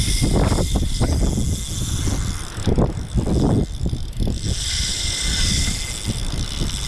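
Wind buffeting a body-worn camera's microphone in rough, uneven low gusts, with a hiss that swells briefly about halfway through.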